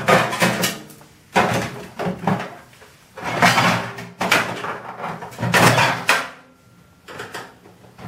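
Metal microwave casing being handled and shifted on a concrete floor while its cover screws are worked with a screwdriver: a run of loud, scraping, rattling knocks, about six in all, each under a second long.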